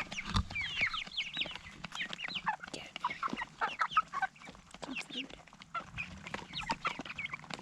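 A flock of four-week-old meat king broiler chicks cheeping over and over in many short, falling chirps while they feed, with scattered light taps among them.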